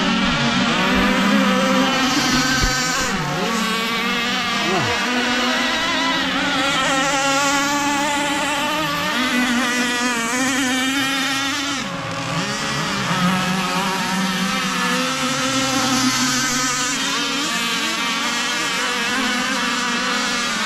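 Small two-stroke chainsaw-type gasoline engines of RC powerboats running flat out, a high buzz whose pitch wavers up and down with throttle and turns, with more than one engine overlapping at times.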